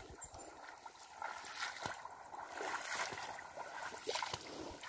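Shallow canal water trickling and lapping softly, with scattered small splashes and ticks.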